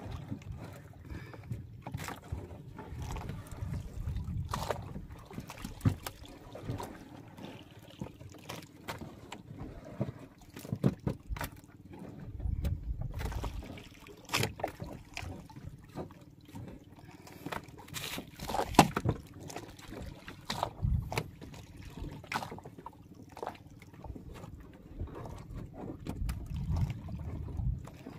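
Irregular knocks and clinks of fish and a metal bucket being handled in the bottom of a small outrigger fishing boat, over a low uneven wash of water against the hull.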